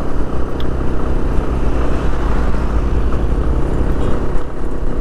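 Yamaha FZ25's single-cylinder engine running steadily at cruising speed, heard under a heavy low rumble of wind on the microphone and road noise.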